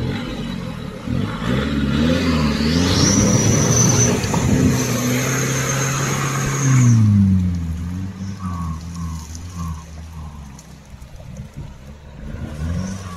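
Nissan Patrol GR Y61 engine revving hard as it climbs out of a river onto a muddy bank with its wheels spinning, the revs rising and falling, and a high whine over it for several seconds. About seven seconds in, the revs drop and the engine runs on more quietly.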